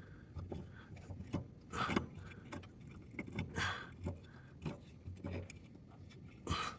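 Faint, scattered metal clinks and rustling from hand tools working the mower blade's bolt loose under the deck, with a few louder knocks among them.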